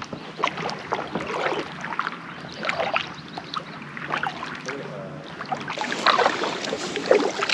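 Double-bladed kayak paddle dipping into calm water, with small irregular splashes and water dripping off the blades.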